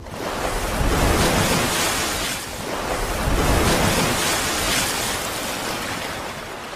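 Rushing water sound effect, like surf, swelling up twice and easing off.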